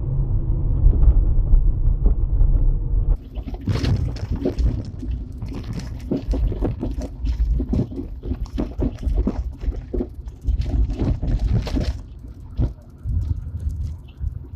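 Lada Granta cabin with low road rumble for about three seconds, then a run of irregular knocks and rattles from the car. This is the rear knock that the owner traces to weakened thin springs holding the rear drum brake shoes.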